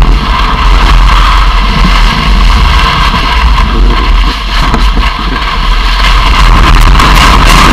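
Loud, steady wind buffeting on a low-mounted action camera's microphone, mixed with the rumble and hiss of sliding over snow.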